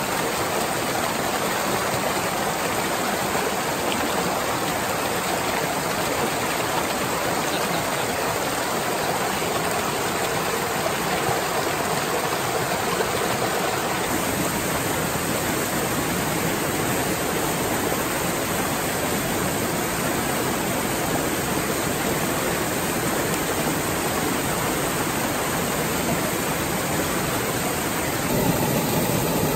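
Small mountain stream rushing over a low rock cascade: a steady water noise that gets louder and deeper near the end.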